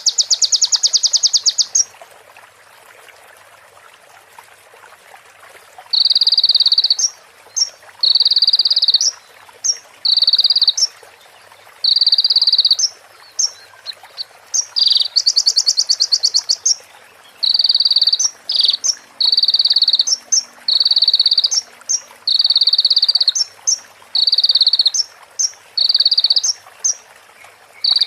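Recorded song of a konin (kolibri ninja sunbird): a rapid high trill at the start and again about halfway, and between them a long run of short rasping buzzy notes, each under a second, broken by quick high chirps.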